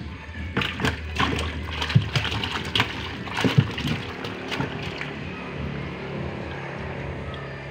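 Small live fish thrashing in a plastic tub of water: a flurry of splashes and slaps over the first few seconds, settling into quieter sloshing. A low steady hum runs underneath.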